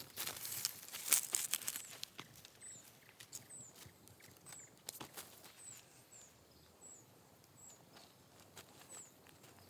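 Rustling, crunching steps over dry ground and leaves, dense in the first two seconds and then scattered, with a thin, high, falling chirp repeating about once a second.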